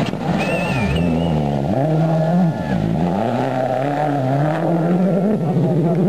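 Turbocharged four-cylinder World Rally Car (a Ford Focus RS WRC) at speed on a gravel stage, its engine note dropping twice as the driver lifts off and brakes, then climbing again under acceleration and holding high revs. A brief high whistle sounds about half a second in.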